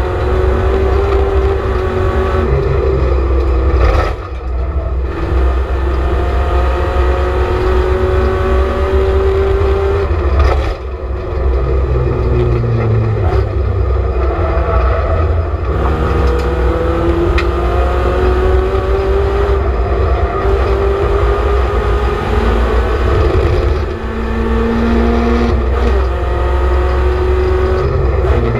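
In-car sound of a BMW Compact race car's engine running hard on track. Its pitch climbs and falls as it works through the gears, and the loudness dips briefly three times where the throttle comes off.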